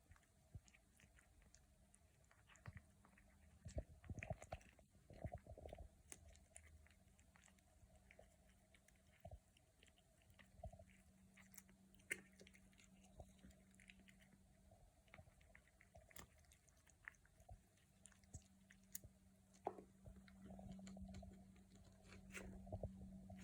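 A kitten chewing and crunching green peas: faint, irregular small clicks and crunches, louder and closer together around four to six seconds in.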